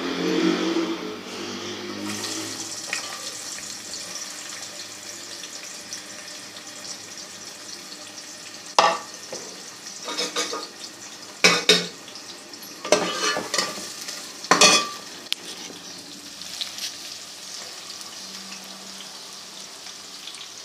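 Chopped onions frying in hot oil in a steel pot: a steady sizzle that sets in about two seconds in. A metal spoon scrapes and knocks against the pot several times midway through.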